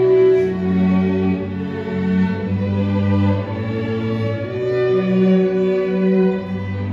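String quartet of two violins, a viola and a cello playing live: slow, held notes, the cello sustaining a low line beneath the melody.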